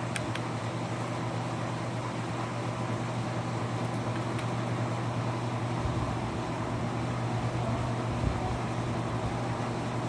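Steady mechanical hum with a constant low drone under an even hiss, and a few faint ticks near the start and about four seconds in.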